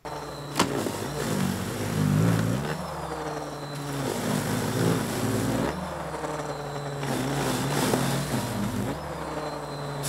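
Electric snow shovel's motor running steadily while its paddle throws snow, the pitch wavering up and down as it works into the snow, with a sharp click about half a second in.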